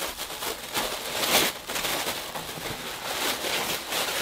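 Wrapping on a t-shirt crinkling and rustling in irregular bursts as it is torn open and pulled off by hand.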